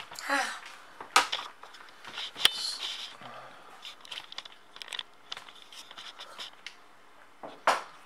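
Clicks, knocks and rustling as the dishwasher's opened door panel, plastic latch assembly and wiring are handled, with sharp knocks about a second in, about two and a half seconds in, and near the end.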